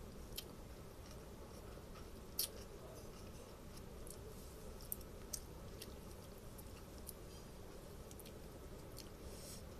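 A person chewing a mouthful of noodles, with a few short, sharp clicks scattered through.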